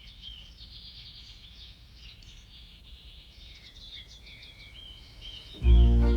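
Birds chirping and twittering, faint and busy. Near the end, loud music with a heavy bass starts suddenly.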